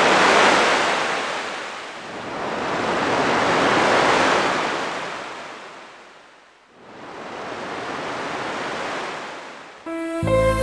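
Sea surf: waves breaking and washing up the shore, rising and falling in three long surges. Music comes in right at the end.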